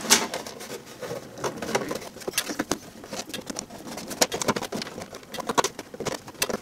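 Irregular light clicks and taps of a metal ignition coil cover being handled and fitted into place.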